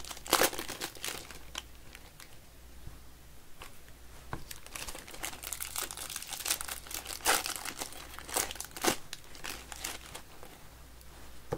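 Baseball card pack wrappers crinkling and tearing as they are ripped open by hand, in irregular crackly bursts.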